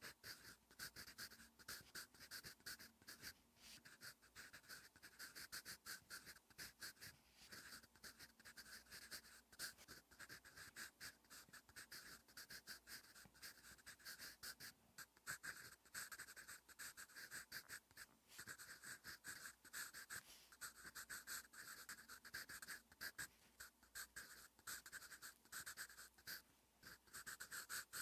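Soft 8B graphite pencil (Staedtler Mars Lumograph Jumbo) scratching across lined paper in quick short strokes as it writes Korean letters, with brief pauses between syllables.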